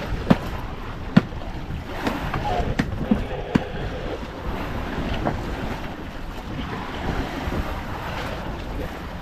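Wind buffeting the microphone and sea water washing around a small fishing boat, with a handful of sharp knocks against it, mostly in the first four seconds.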